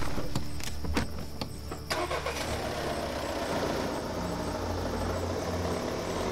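A few sharp knocks as the Volkswagen Tiguan's doors are shut, then about two seconds in its engine starts and runs steadily as the car pulls away.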